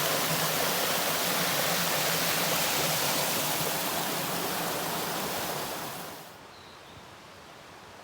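Steady rush of flowing water that drops away sharply about six seconds in, leaving a quiet background.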